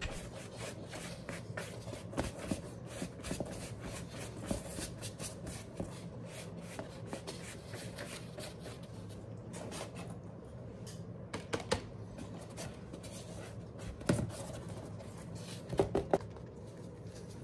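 Dry brushing acrylic paint onto an EVA foam top hat: a steady run of light, scratchy brush taps and strokes, with a few louder knocks as the hat is handled in the second half.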